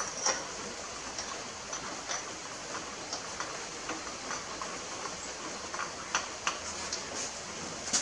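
Light, scattered metallic clicks and ticks as the centre flywheel nut is turned on by hand over the new fan screen of a Briggs & Stratton 15.5 hp lawn tractor engine, over a steady low hiss.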